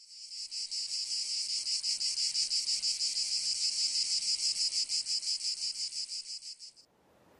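A singing insect, cricket-like, trilling steadily in a rapid, even pulse, high-pitched; it fades out near the end.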